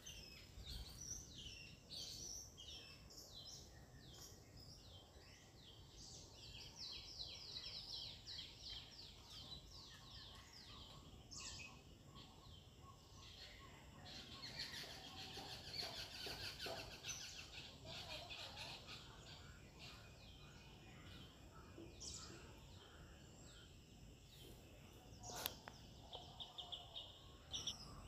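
Faint birdsong: several small birds chirping, with runs of fast repeated notes, over a low outdoor background, and a single sharp click near the end.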